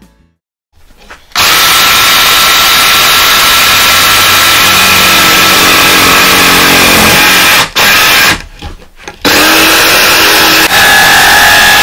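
DEWALT DCS331 20-volt cordless jigsaw cutting through plywood. It starts about a second in and runs steadily, stops briefly twice around eight and nine seconds in, then cuts again.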